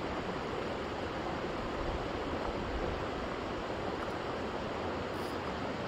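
Steady, even rush of running water, with no distinct events in it.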